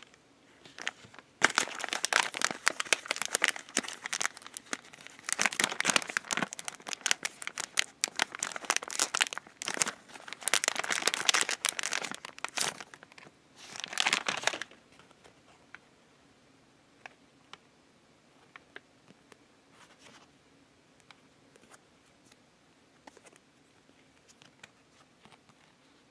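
Plastic snack wrapper crinkling and tearing as it is opened and handled, in dense bursts for about the first fifteen seconds. After that only faint small ticks and taps.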